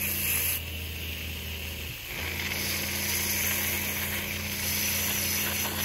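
Water spraying hard from a hose's spray nozzle, a steady hiss, over the steady hum of a Seaflo 33-series 12-volt diaphragm pressure pump, which dips briefly about two seconds in.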